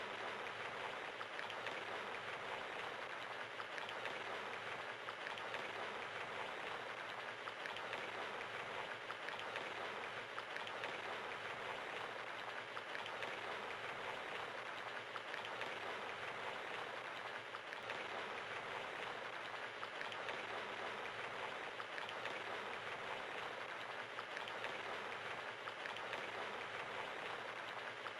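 Rain pattering steadily, an even hiss of drops.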